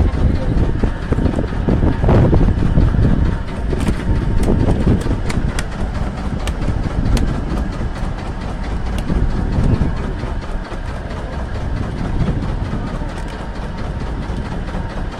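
Steady low rumble of a fishing boat under way, its engine running, with a few light clicks and knocks from handling on deck about four to seven seconds in.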